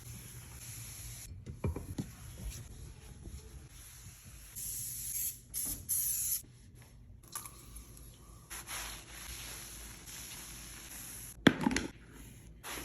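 Several short bursts of hissing, like a spray, with handling noises between them and a sharp knock near the end.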